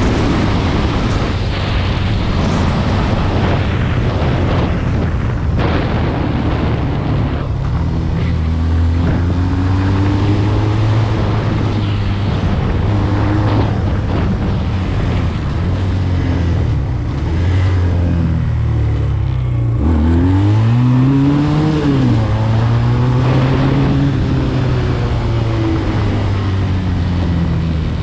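SMC Barossa 250 quad's twin-cylinder engine running under way, its pitch rising and falling with the throttle. About twenty seconds in it drops sharply, then revs back up.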